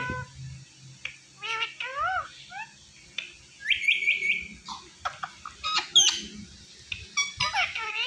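Indian ringneck parakeets chirping and squawking in short, pitched, gliding calls, with a quick run of repeated notes about four seconds in and the loudest sharp squawk about six seconds in.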